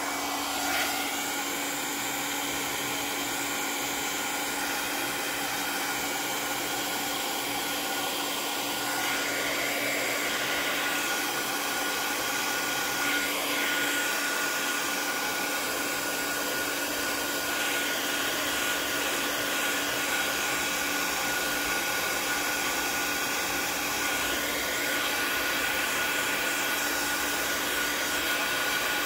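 Handheld embossing heat gun blowing steadily, a fan-driven rush of hot air with a constant hum and a higher whine, melting clear embossing powder.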